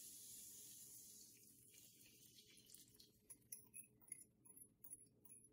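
Near silence: a faint hiss fades over the first few seconds, then faint scattered ticks, as a sugar, vinegar and water mixture is poured from a glass measuring cup into a skillet.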